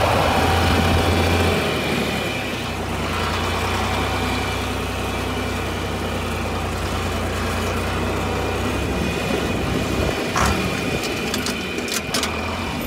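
Tractor engine running steadily, quieter and lower after about a second and a half. A few sharp clicks and knocks near the end.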